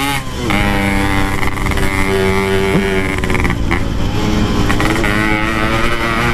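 Two-stroke Yamaha RX-King motorcycle engine running under way through an aftermarket packing-type exhaust, a steady note that dips briefly twice, near the start and about three and a half seconds in, as the throttle comes off and back on.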